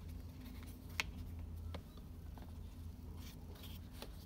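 Light clicks and taps of a smartwatch and its cardboard box being handled and set down, with one sharper click about a second in, over a low steady hum.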